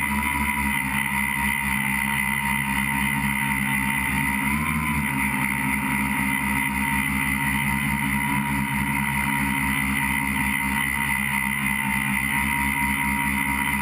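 Electric motors and propellers of a tricopter, heard from its onboard GoPro, buzzing steadily in flight with a high whine, the pitch briefly rising about four to five seconds in as the throttle changes.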